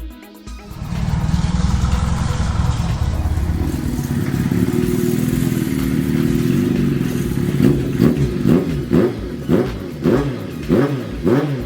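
Kawasaki air-cooled inline-four motorcycle engine running through a megaphone-type silencer. It idles steadily, then over the last few seconds is blipped in a quick string of short revs, about two a second.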